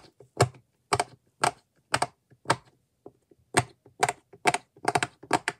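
Square silicone push-pop fidget toy (a 36-bubble poppet) being pressed bubble by bubble with the fingers: a string of sharp pops, about two a second, a short pause just past the middle, then quicker pops near the end.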